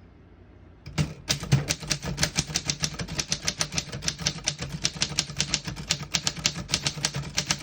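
1931 Corona Four portable typewriter being typed on: a fast, even run of sharp keystroke clacks, several a second, starting about a second in.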